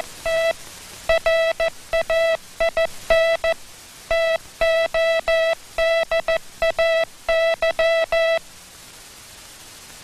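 Morse code keyed as a tone of one steady pitch, short dits and long dahs spelling out "WET RAIN TODAY", which is "WE TRAIN TODAY" sent with a misplaced word space, an example of faulty spacing. The keying stops a little past eight seconds in, leaving a faint hiss.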